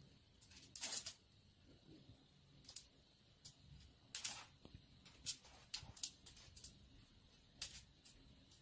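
A cat's claws scraping on a painted wall in short, scattered scratches as it clings and slides down, the loudest about a second in. A faint steady high tone runs underneath.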